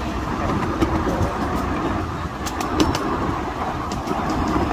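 Ride-on miniature railway train running along 7¼-inch-gauge track: a steady rumble of the wheels on the rails, with a few sharp clicks about two and a half to three seconds in.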